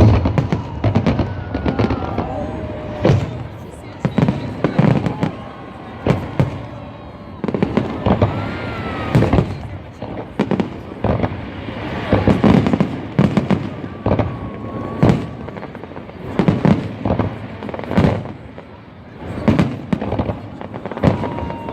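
Festive fireworks salute: aerial shells bursting in a steady run of booms and cracks, one every second or two.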